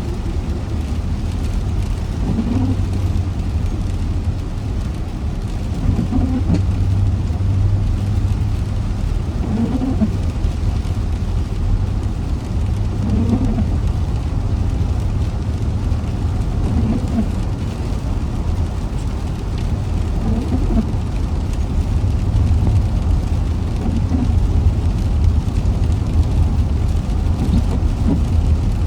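A car driving in rain: a steady low rumble of road and engine noise under an even hiss of rain. A short sound recurs about every three and a half seconds.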